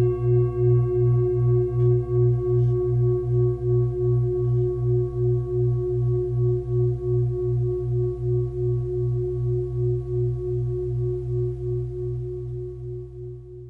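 A singing bowl ringing in one long sustained tone with a steady wavering pulse of about three beats a second, slowly fading.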